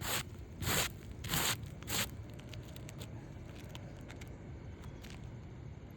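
Loose debris being swept off a shingle roof: four quick scraping strokes in the first two seconds, then only a few faint ticks.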